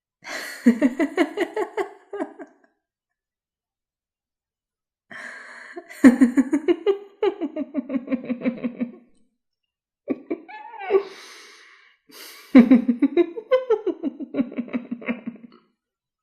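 A run of short horror sound-effect clips of a person laughing, each a burst of rapid pulsed "ha-ha" syllables, separated by dead silence; the third, shorter clip glides in pitch, more like a gasp or sigh.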